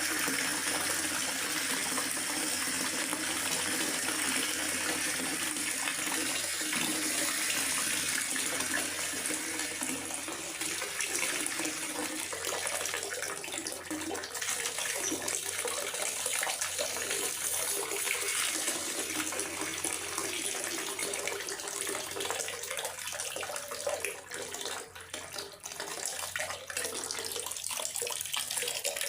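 Steady rain in a forest: an even rushing hiss of water, dipping briefly a little before the end.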